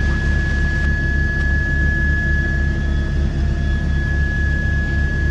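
Helicopter cabin noise in flight: a steady engine and rotor drone with a fast low pulsing and a steady high-pitched whine.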